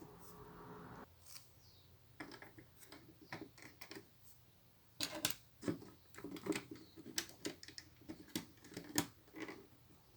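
Small plastic Lego pieces clicking and tapping as they are handled and pressed together, scattered at first and in quick runs of clicks in the second half.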